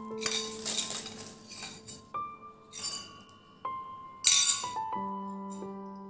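Small stainless steel jar and its lid clinking and scraping as they are handled, a few separate sharp clinks with the loudest a little after four seconds in. Soft background music with sustained keyboard-like notes runs underneath.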